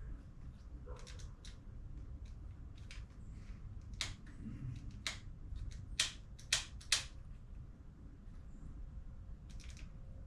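Scattered sharp clicks and light taps of parts and tools being handled while a mountain bike's stem spacers and handlebar are set, with the loudest four clicks about four to seven seconds in.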